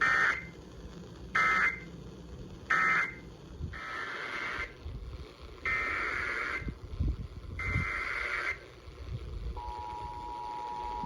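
Emergency Alert System data tones over a radio broadcast. Three short bursts of warbling SAME data close the previous alert as its end-of-message codes. Three longer bursts of SAME header data follow for the next alert, and about three-quarters of the way through, the steady two-tone EAS attention signal starts.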